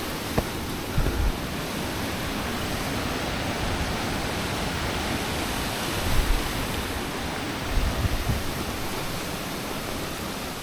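Strong wind rushing steadily, with low gusts buffeting the microphone about a second in and again around six and eight seconds.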